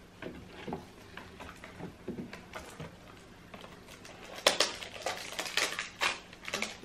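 Packaging crinkling and rustling in someone's hands as a perfume package is opened. Soft handling noises at first, then a quick run of sharp crinkles from about four seconds in.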